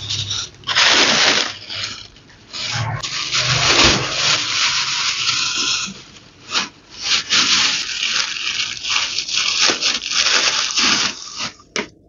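Thin plastic grocery bags rustling and crinkling in irregular bursts as they are handled and opened. The sound stops suddenly near the end.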